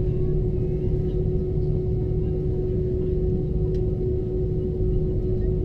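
Airbus A319 cabin noise while taxiing: a steady low rumble from the engines at idle, with a constant hum.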